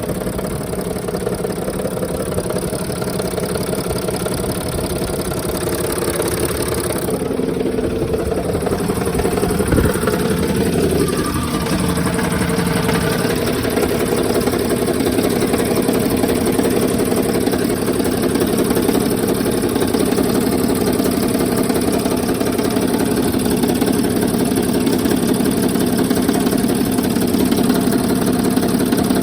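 Mercedes OM642 V6 turbodiesel idling steadily with its accessory belt removed, with a knocking and tapping from the van's left cylinder bank. The engine is well used and poorly maintained, and the knock is the noise being tracked down.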